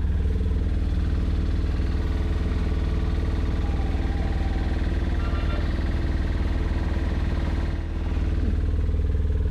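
Diesel vehicle's engine idling steadily, heard from inside the cab.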